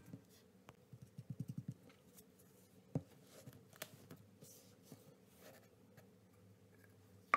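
Faint handling of a plastic cup packed with kinetic sand: a quick run of light taps about a second in, a single soft knock about three seconds in as the filled cup is turned over onto the table, then small rubs and clicks as it is pressed down.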